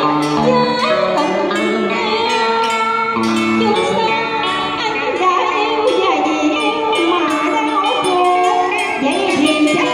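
Electric guitar accompanying a woman singing a cải lương excerpt through a PA, with bent and sliding notes and wavering held tones.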